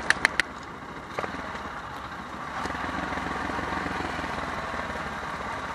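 Motorstar sport motorcycle's engine running steadily as the bike rolls down a concrete road, with a few sharp clicks right at the start.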